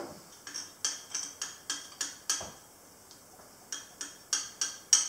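Light, rhythmic clinking against glass as sugar and cinnamon are stirred together in an Erlenmeyer flask, about three or four clinks a second, pausing for about a second midway.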